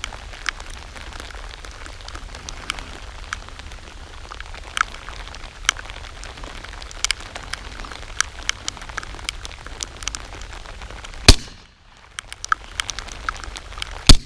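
Two suppressed .45 ACP pistol shots from an FNX-45 Tactical fitted with a SilencerCo Octane 45, about three seconds apart near the end, each a short sharp crack. Underneath runs a steady patter of small clicks over a low hum.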